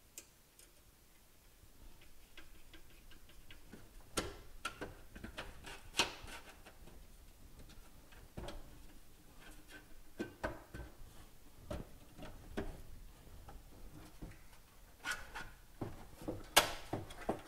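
Irregular clicks, taps and small clatters of a computer power supply being reassembled by hand: a screwdriver working screws at the fan grille and the sheet-metal case being handled, with a few sharper knocks.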